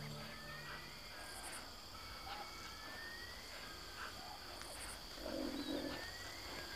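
Savanna wildlife ambience: a steady high insect drone, scattered bird chirps and short rising whistles, and a low cooing call about five seconds in.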